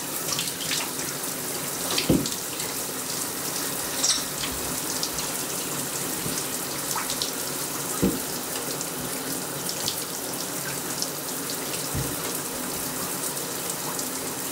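Shower water running steadily, spraying and splashing in a small bathroom, with three short thumps about 2, 8 and 12 seconds in.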